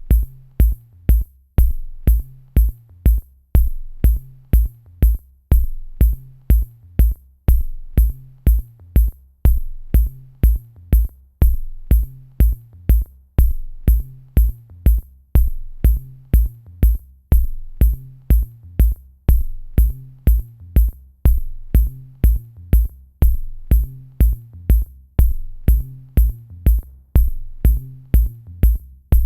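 Electronic background music with a steady drum-machine beat: a kick drum and bass line with crisp hi-hats, about two beats a second.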